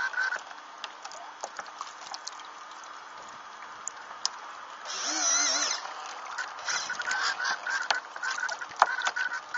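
Water splashing and rushing against the hull of a Mini40 RC hydrofoil trimaran under way, full of small sharp splashes. A fluttering, pulsing whine comes and goes, and a brief warbling tone sounds about five seconds in.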